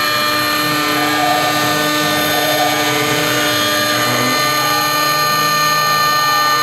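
6090 CNC router spindle running at speed, a steady whine with many high tones, as a small end mill cuts a relief into a metal coin blank. Lower tones shift as the cutter travels across the coin.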